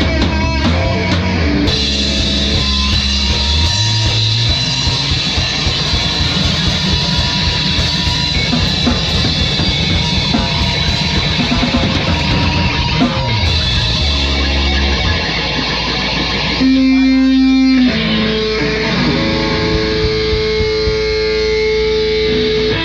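Heavy rock music led by electric guitar over a moving bass line. About two-thirds of the way through, the full band drops out for about a second to a single held low note, then sustained guitar chords ring on.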